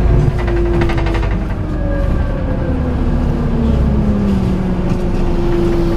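Scania N280UB city bus driving, heard from inside near the front door: the engine and drivetrain whine drops in pitch midway, then holds steady. Some rattling about a second in.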